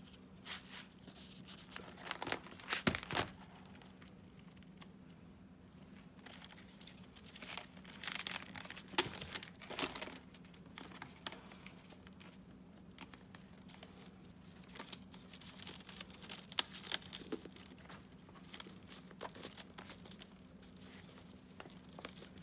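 Newspaper gift wrap and plastic mesh ribbon crinkling and rustling as they are handled, in scattered bursts with quieter gaps between.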